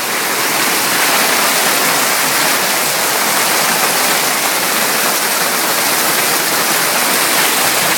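Torrential rain pouring down, a steady, dense, even hiss with no letup.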